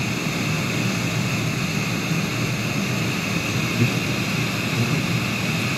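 Hot-air SMD rework gun blowing a steady airy rush, heating the solder to lift a level shifter IC off a TV's T-Con board.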